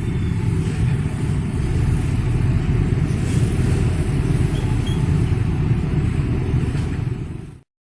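Heavy, steady rumble of vehicles passing close by at a railroad crossing. It cuts off abruptly near the end.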